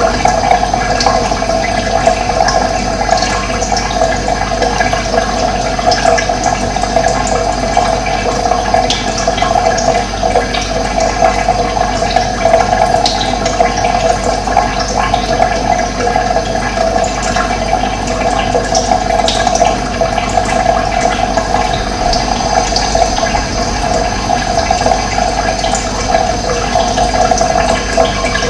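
Running water, a steady rushing flow.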